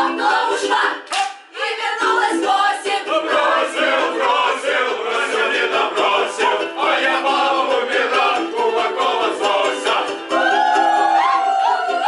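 A choir of mostly women's voices singing with ukulele accompaniment. About ten seconds in, the voices break into long, drawn-out wails.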